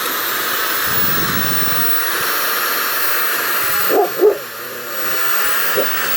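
Electric drill running steadily as it bores a test hole into a wooden log. About four seconds in, two short pitched yelps, like a dog's barks, sound over it.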